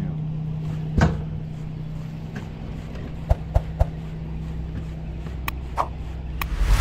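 Boat engine running steadily at idle, a constant low hum, with several sharp knocks and clicks on deck; the loudest knock is about a second in.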